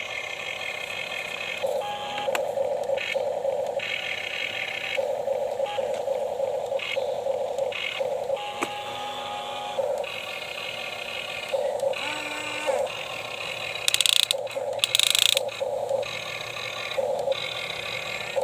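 Radio-controlled model excavator's small electric motors whirring in repeated short on-off bursts as its functions are worked. About 14 and 15 seconds in, two louder harsh noise bursts.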